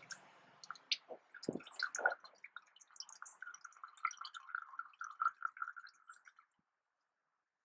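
Engine oil dripping from the drain hole into a drain pan: quick irregular drips and small splashes that stop about six and a half seconds in.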